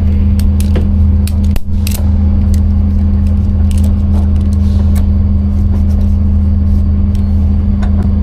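A vehicle engine idling steadily with a low hum, with scattered light clicks and jingles over it.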